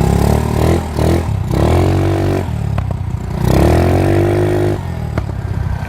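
Honda Ruckus scooter engine running and being revved: a few short blips, then two longer revs that rise in pitch and hold for about a second each before dropping back.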